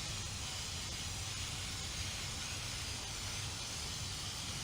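Aerosol can of Deep Woods Off insect repellent spraying in one long, steady hiss, soaking a rag for use on a foggy headlight lens.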